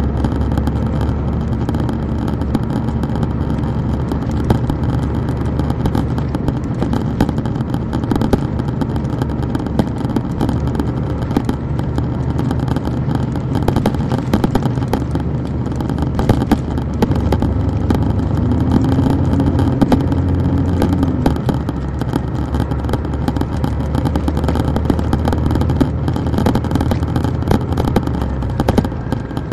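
Detroit Diesel Series 60 inline-six diesel engine of a 2002 MCI D4000 coach, heard from the rear seats, running steadily under way. Past the middle the engine grows louder and its pitch swells for a few seconds as the bus accelerates, then settles back, with light interior rattles throughout.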